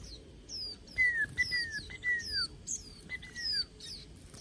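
Caged white-eyes calling: a fast run of short, high, falling chirps, with a few lower, longer falling whistles in the middle.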